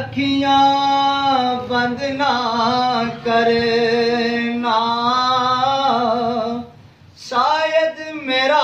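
A man singing a Sufi devotional zikr in Punjabi, drawing out long held, ornamented notes, with a brief break about seven seconds in.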